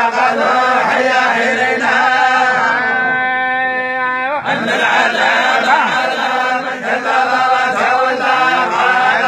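A group of men reciting the Quran together in unison, a chanted recitation with long held notes. One phrase ends and the next begins about four and a half seconds in.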